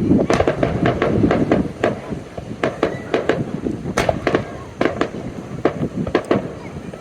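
Fireworks going off in a rapid string of sharp cracks and bangs, thick through the first two seconds and then more scattered.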